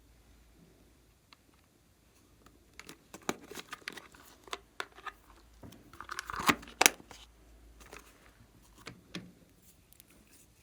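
Crinkling, crackling handling noises: a run of sharp clicks and crackles that thickens in the middle, the two loudest snaps close together, then thins out.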